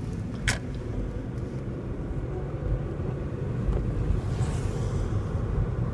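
Steady low engine and tyre rumble heard from inside a car driving on a wet road, with a sharp click about half a second in and a brief swish about four and a half seconds in.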